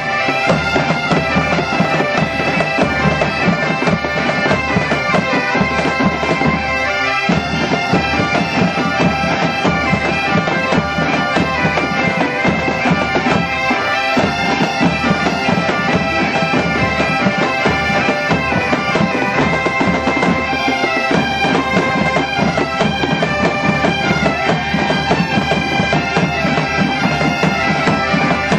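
A large ensemble of Galician bagpipes (gaitas) playing a tune together over their steady drones, with bass drums and snare drums beating along.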